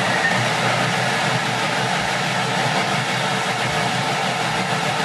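An electric kitchen mixing appliance's motor running steadily and loudly while it mixes muffin batter.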